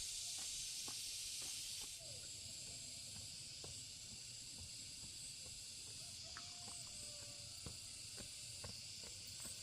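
Steady high-pitched insect chorus that drops a step in level about two seconds in, with scattered faint clicks and taps.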